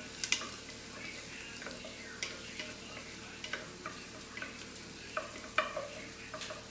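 Diced carrots and other vegetables sizzling in a pot on the stove while a spoon stirs them, with scattered light clinks of the spoon against the pot.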